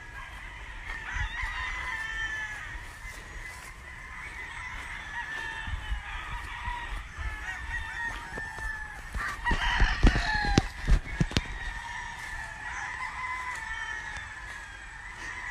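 Several gamefowl roosters crowing, their calls overlapping one after another throughout. About nine to eleven seconds in, a cluster of sharp knocks, the loudest sounds.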